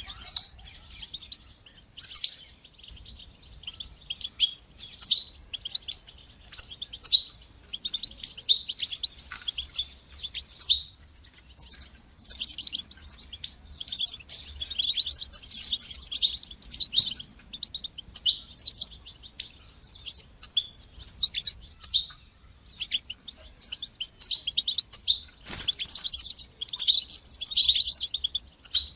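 European goldfinch singing: a continuous run of quick, high twittering and chirping notes, growing denser in the second half, with a single sharp click late on.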